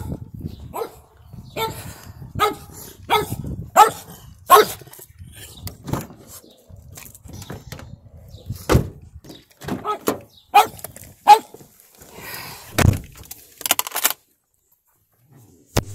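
Dog barking over and over, short barks a little under a second apart. Two heavy thumps come later, the louder one about thirteen seconds in. The sound cuts out abruptly soon after.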